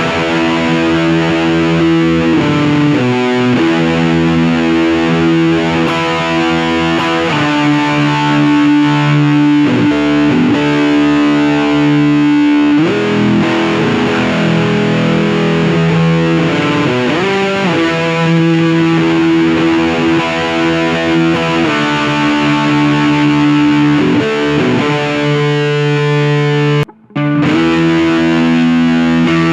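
Distorted electric guitar from a Fender American Standard Stratocaster with Seymour Duncan P-Rail pickups, played through a small NUX Mighty Lite BT amp. Long held chords change every few seconds, with one brief full stop near the end.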